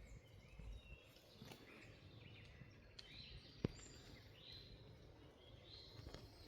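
Quiet forest ambience with small birds chirping now and then in short rising and falling calls. A single sharp click comes a little past halfway.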